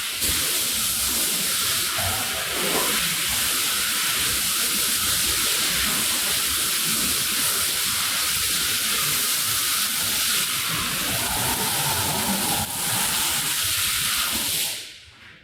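Steady hiss of a water spray rinsing a soaked rug, shutting off abruptly near the end.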